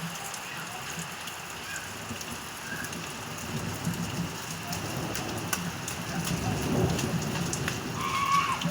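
Steady rain falling, with a long low rumble of thunder that swells from about three seconds in and peaks near the end.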